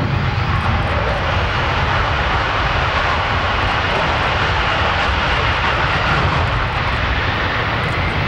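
F-35B Lightning II's single jet engine running at take-off power through a short take-off roll and lift-off, a loud, steady jet noise.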